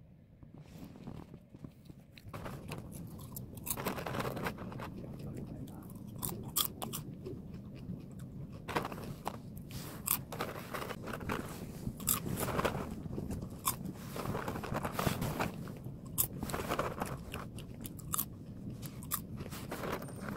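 Caramel popcorn being chewed close to the microphone: repeated crisp crunching bites, starting about two seconds in.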